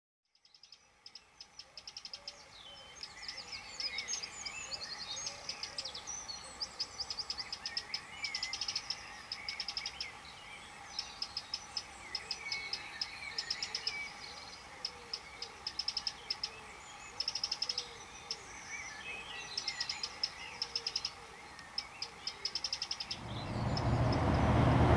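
A morning chorus of several songbirds, rapid trills and chirps overlapping, fading in from silence over the first couple of seconds. Near the end a low rumble of road traffic rises underneath.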